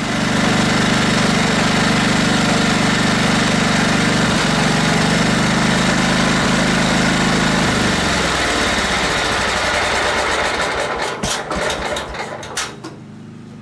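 Kohler CV15S single-cylinder engine on a riding mower, running on a freshly fitted replacement carburetor. It runs steadily, then about eight seconds in its pitch falls and it coasts down, the firing strokes spreading out until it stops a few seconds later.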